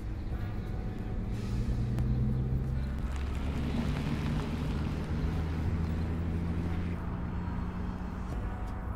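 Soundtrack of long, held low synth notes that shift pitch a few times. A whoosh swells and fades near the middle.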